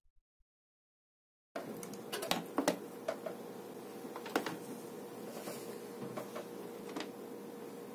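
Dead silence for about a second and a half, then an unprocessed microphone's steady background hiss with a faint hum cuts in, with a few scattered clicks and knocks from hands handling cables on the desk.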